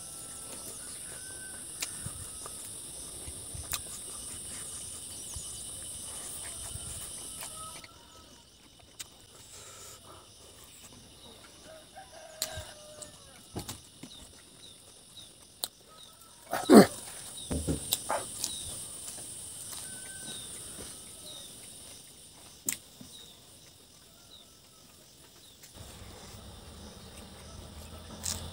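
Eating by hand, with faint chewing and food handling, a few small clicks and one sharp loud knock about halfway through. Insects buzz steadily in the background for the first third, and short bird calls come in now and then.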